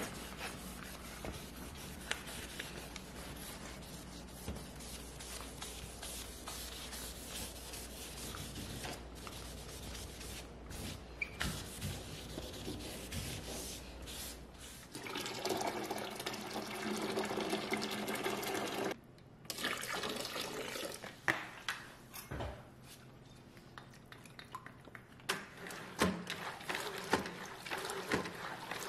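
Melamine-foam Magic Eraser rubbing along baseboards and cabinet bases under a gloved hand: a steady scrubbing. About halfway through, a louder stretch of a few seconds cuts off abruptly, followed by scattered knocks and clicks.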